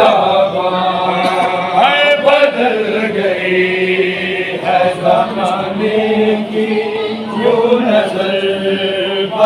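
Male voices chanting a noha, a Shia lament, with a lead reciter and a group of men singing along. The notes are long and held.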